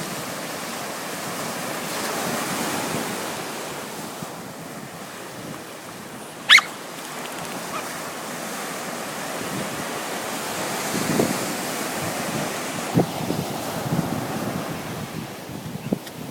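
Sea surf washing steadily, with wind buffeting the microphone. A single short, high-pitched squeal stands out about six and a half seconds in, and a few short low sounds come near the end.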